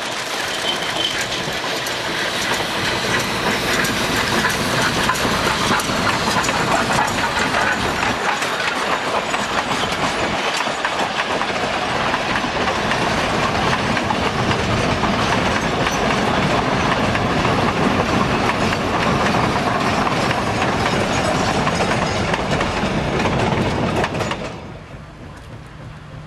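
Narrow-gauge freight train behind East Broad Top's Baldwin 2-8-2 Mikado steam locomotive No. 15 passing close: a boxcar and a string of empty steel coal hoppers roll by, their wheels clattering over the rail joints. A little before the end the loud passing sound stops suddenly, leaving a quieter, distant train.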